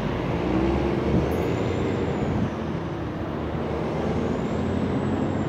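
Amtrak Surfliner bilevel passenger cars rolling past, a steady rumble of wheels on the rails.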